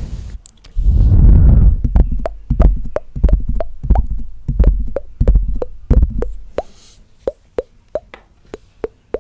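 Close-miked tongue clicks: a run of sharp, wet, hollow pops about three a second, with breaths rushing onto the microphone between them.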